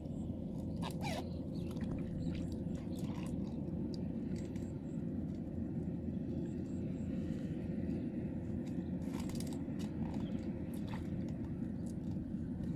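Small engine of a water pump running steadily with a low rumble and a constant hum. A few light clicks and water splashes sound over it.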